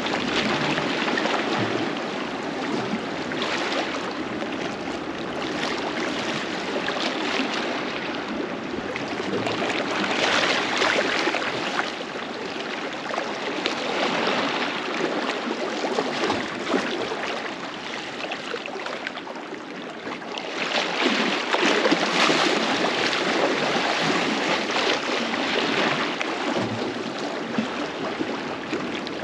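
Small sea waves lapping and washing against rocks at the water's edge: a steady splashing wash that swells louder about ten seconds in and again around two-thirds of the way through.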